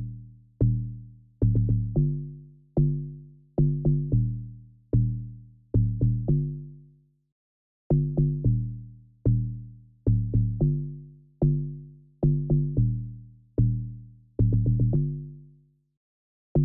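Amapiano log drum, an electronic pitched bass-drum patch, playing a syncopated two-note pattern on its own. Each deep, booming hit rings down over about half a second, and the phrase repeats about every eight seconds. The playing stops a little before the end, and one more short hit comes right at the close.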